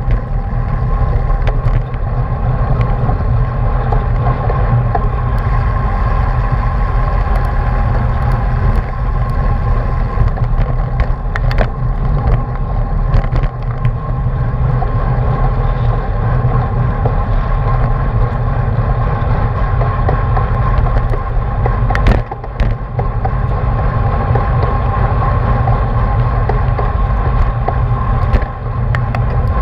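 Wind buffeting a bike-mounted action camera and road rumble while riding at race speed in a pack of cyclists, with a steady hum running through it. A few sharp clicks break through, the loudest about two-thirds of the way in.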